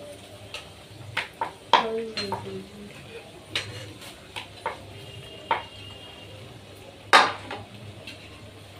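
Clinks, scrapes and knocks of steel kitchenware: a ladle stirring in a frying pan and utensils set down on steel plates, in scattered single strikes, with the loudest sharp clank about seven seconds in.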